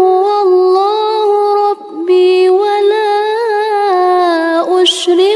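A woman reciting the Qur'an in a melodic, chanted style, holding long notes that waver and bend in pitch. There is a short break about two seconds in and a quick breath near the end.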